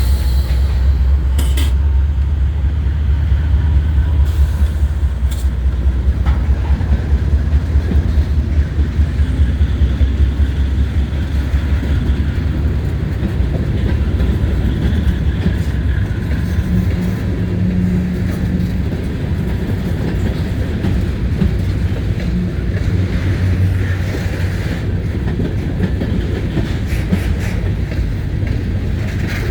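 CSX freight train hauling covered grain hoppers passing close: a heavy, loud diesel locomotive rumble for the first ten seconds or so, easing into the rolling and clatter of the cars going by.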